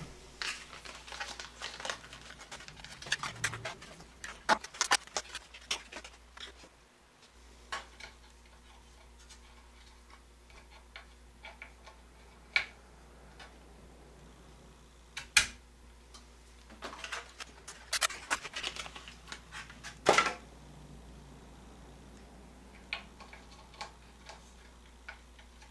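Scattered clicks, taps and light plastic rattles of a RAM stick being handled and pressed into its motherboard slot, with two sharper clicks about 15 and 20 seconds in.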